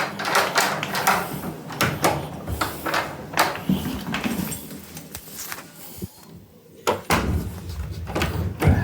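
A run of clicks and knocks from a door being worked: handles, latch and door moving. The knocks are thickest in the first few seconds, ease off, and pick up again near the end.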